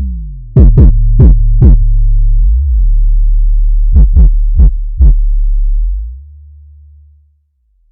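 Electronic background music with a deep sustained bass and sharp drum hits, which fades out about six seconds in.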